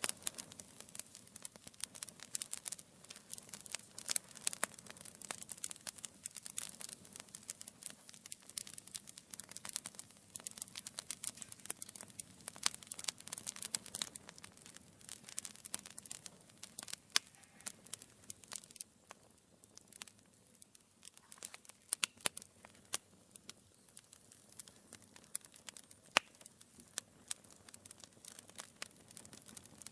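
Wood fire burning in a fireplace, crackling and popping with many sharp snaps over a soft hiss. The crackles come thickest in the first half, with fewer but a few louder pops later on.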